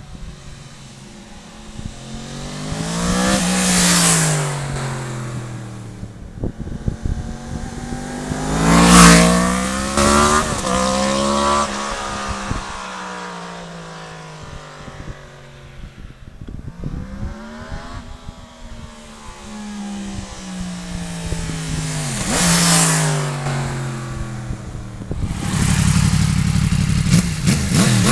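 Yamaha MT-10 motorcycle on its stock exhaust, its crossplane inline-four rising and falling in pitch as it accelerates and backs off. It is loudest in three swells about 4, 9 and 23 seconds in, and runs close and loud near the end.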